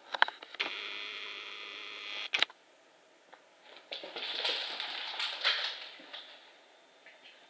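A cat playing with a small stick on a rug and hard floor. There are a few sharp clicks, then a steady scrape of about two seconds that ends in a loud click, then, after a pause, about two seconds of scuffling as paws and stick skid across the floor.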